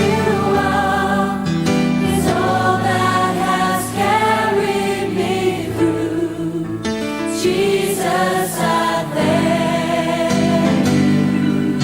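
Christian worship music: several voices singing a melody over sustained low accompaniment.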